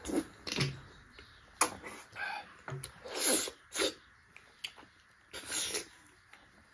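Close-up eating sounds of ripe jackfruit bulbs: wet chewing, lip smacks and sucking slurps in short irregular bursts, with a sharp click about one and a half seconds in.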